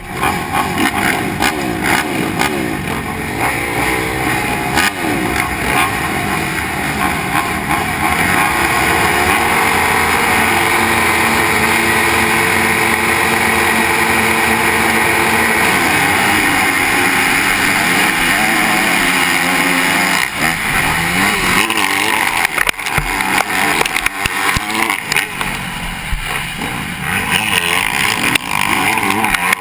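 A field of motocross bikes revving at the starting gate, engines held at high revs for several seconds, then the pack launching hard off the line about two-thirds through and accelerating into the first turns. Heard close up from a rider's helmet.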